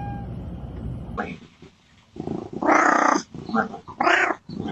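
A cat hissing and growling in several short bursts, starting about two seconds in.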